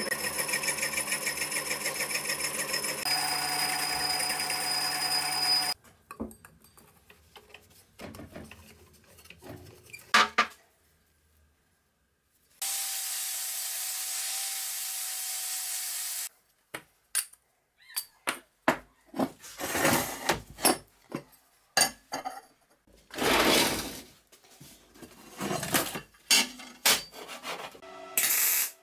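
Metal lathe running steadily with a whine of several fixed tones as its cutting tool turns a cylindrical part, stopping about six seconds in. After a few knocks and handling sounds, an angle grinder runs steadily for about four seconds, then a string of short knocks and brief bursts of metalwork follows.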